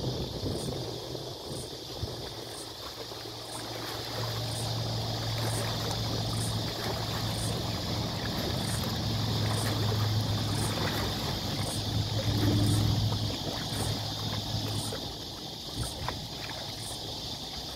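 Riverbank ambience: a distant engine hum that builds from about four seconds in, is loudest a little past the middle and fades out near the end, over a steady outdoor hiss with a faint high chirp repeating about twice a second.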